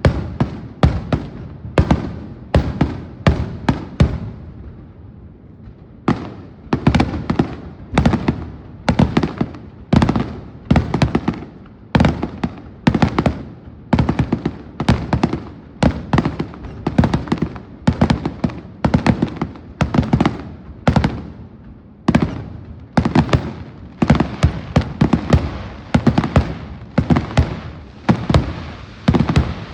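Aerial fireworks bursting in a rapid barrage, sharp reports coming one or two a second with their echoes running on between them, with a brief lull a few seconds in.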